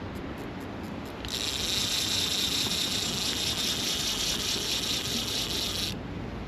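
Fishing reel being wound in to take up a slack line: a few light ticks, then a fast, dense whirring clatter from about a second in that stops near the end, over wind and surf.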